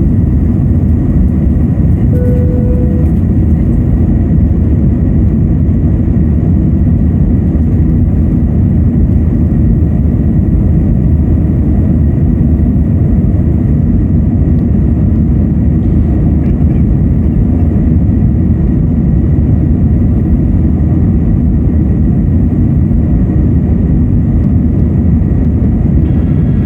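Airliner cabin noise during the climb after takeoff: a steady, loud low rumble of jet engines and airflow heard from inside the cabin. A short steady tone sounds once about two seconds in.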